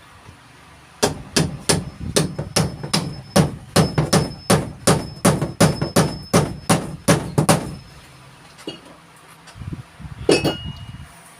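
Hammer nailing in carpentry: a run of about twenty sharp, steady blows, roughly three a second, then a pause and one last blow with a short ring.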